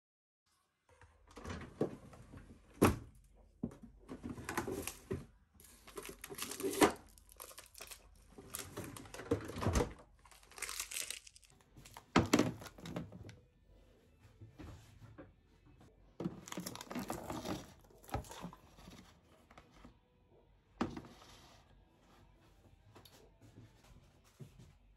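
Close-up household handling sounds: irregular rustling and crinkling with scattered sharp knocks and thunks.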